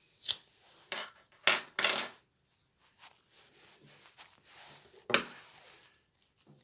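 Small metal tools and a car key fob's plastic and metal parts clicking, knocking and clattering against a hard countertop as they are handled and set down. There are a few sharp clicks in the first two seconds, a short rattle about two seconds in, and another knock about five seconds in.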